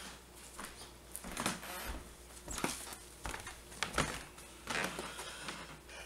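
Irregular soft knocks and footfalls of a person moving about barefoot on a hardwood floor in a small room.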